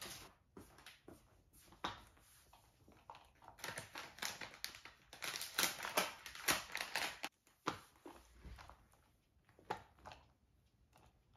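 Rustling and scraping of a flat floor mop and its disposable wiping sheets, densest as a run of scratchy strokes for a few seconds in the middle, with scattered light clicks and taps around it.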